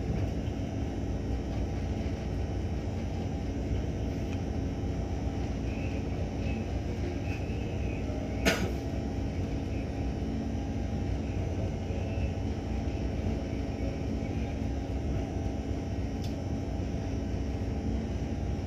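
Steady low drone of a vessel's engine running, with a faint hum of steady tones over it. A single sharp click about halfway through.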